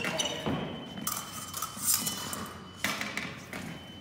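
Épée blades clashing: a string of sharp metallic clinks, the loudest about two seconds in.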